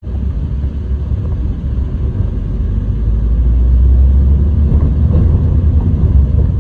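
Loud, steady low rumble of a car driving slowly, heard from inside the cabin.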